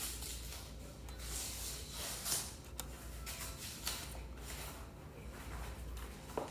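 Hands fitting a bolt through a scooter headlamp's mounting bracket: irregular rubbing and scraping with a few light clicks of metal parts.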